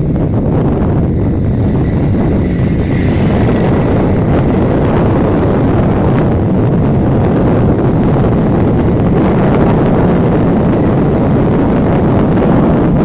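Phosphate freight train rolling along the tracks, a loud, steady rumble.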